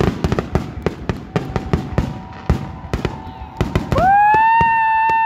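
Fireworks grand finale: a rapid barrage of bangs and crackles. About four seconds in, a loud, long 'woo!' cheer rises and holds over the bangs.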